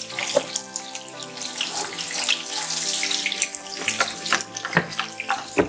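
Chopped green chillies sizzling and crackling in hot oil in a wok as a wooden spoon stirs them, under background music.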